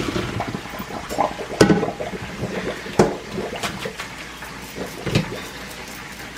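Pasta water and penne poured from a pot into a stainless steel colander in a metal sink, splashing and draining. Three sharp metal knocks, plus a few lighter clicks, come as the pot and colander are handled and shaken.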